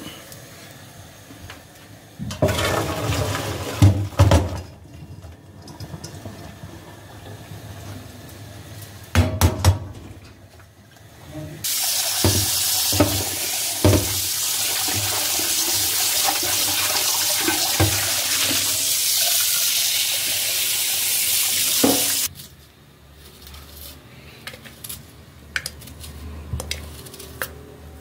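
Kitchen tap running full into a stainless-steel sink for about ten seconds, with knocks of a pot being rinsed under it. Before that come two short bursts of pots and dishes clattering, and small handling clicks follow after the water stops suddenly.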